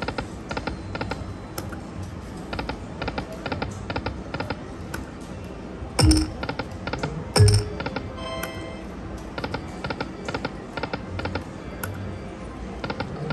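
Aristocrat Lightning Cash video slot machine spinning over and over: quick runs of clicks as the five reels stop one after another, with a few louder thumps and the machine's electronic jingle tones.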